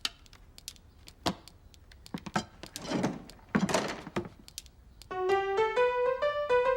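Cartoon soundtrack: a few soft knocks and two brief whooshing swells, then about five seconds in a bright melody of single notes begins.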